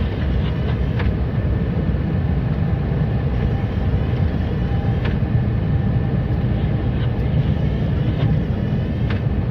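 Steady low rumble of a snowplow truck's engine and road noise heard inside the cab while it drives and plows, with a light click about every four seconds.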